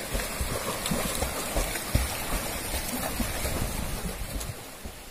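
Flowing stream water with irregular splashing as several swimmers kick and thrash in it, quietening somewhat near the end.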